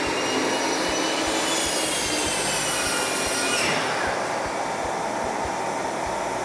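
Miter saw motor whining at full speed over the steady rush of a shop vacuum, which the automatic tool switch has switched on with the saw. About three and a half seconds in the saw is switched off and its whine falls in pitch as the blade spins down, while the vacuum keeps running.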